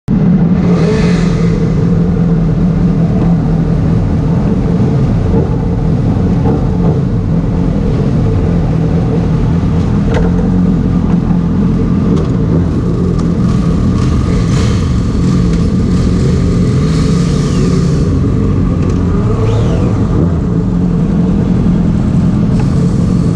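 Honda CBR600RR's inline-four engine idling steadily, with the engines of other sport bikes lined up behind idling along with it.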